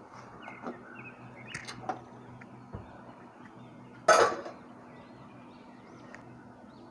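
Pressure cooker lid being handled through a cloth and taken off: a few faint metal clicks and scrapes, then one sharp metal clatter about four seconds in.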